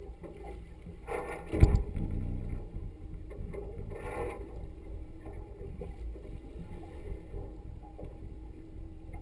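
Boat motor running low and steady under wind on the microphone, with two louder bursts of noise about a second and a half and four seconds in.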